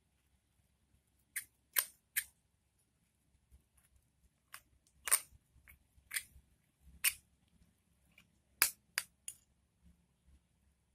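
Spoon clicking and scraping against a container while stirring a thick, nearly set flour-and-dish-soap slime dough: about ten sharp, irregular clicks.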